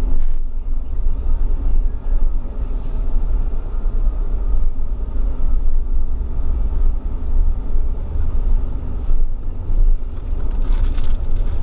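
Steady low rumble of a car driving, road and engine noise heard from inside the cabin. Some brief, brighter noise comes in near the end.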